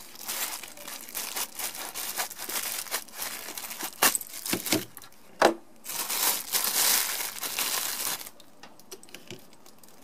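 Clear plastic bag crinkling as it is pulled off a folding pocket knife, with a couple of sharp clicks about four and five and a half seconds in. The crinkling stops a little after eight seconds.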